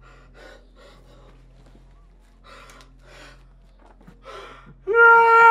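A man's faint gasping, sobbing breaths as he cries. Near the end, a loud, long high note begins and is held steady.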